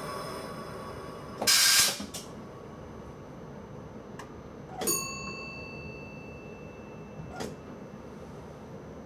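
Sounds in the driver's cab of a stationary intercity train: a short burst of hiss about a second and a half in, a few clicks, then a knock about five seconds in followed by a steady ringing tone that stops with another knock some two and a half seconds later.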